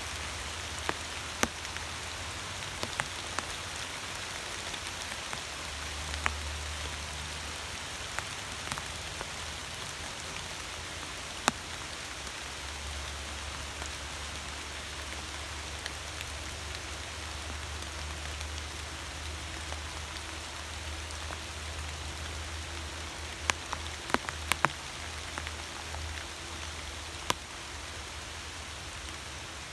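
Steady rain falling, an even hiss with sharp ticks of individual drops scattered through it, several in quick succession near the end, over a low rumble.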